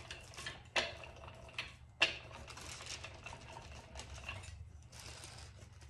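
Rubber brayer rolled in several short strokes over a plastic sheet laid on glued decoupage paper, pressing out wrinkles: a noise in separate strokes, the sharpest starting about two seconds in.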